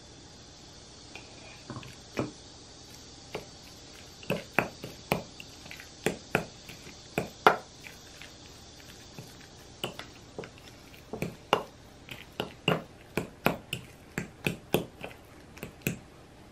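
Metal spoon clinking and scraping against a glass bowl while mashing and stirring a thick avocado and soybean-paste mix: irregular sharp taps, often several a second, with soft squishing between them.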